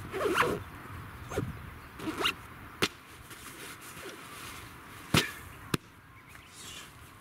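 Zipper being pulled along a canvas gear bag in short strokes, with the fabric swishing as the bag is pressed down, and a few sharp clicks, the loudest about five seconds in.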